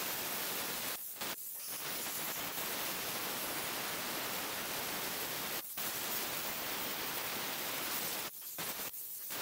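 Handheld plasma cutter cutting through a steel bracket: a steady hiss of the arc and air jet that drops out briefly a few times as the torch stops and restarts.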